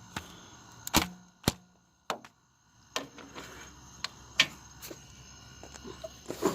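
Hand tools being handled: a series of separate sharp clinks and knocks, about half a dozen spread over several seconds, with a short quiet gap a little past two seconds in.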